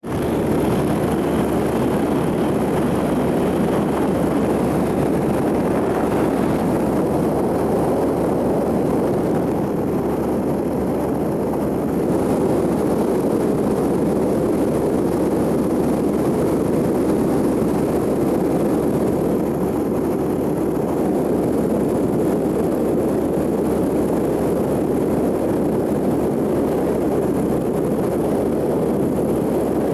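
Diamond DA20 Katana light aircraft's engine and propeller droning steadily in cruise, heard from inside the cockpit.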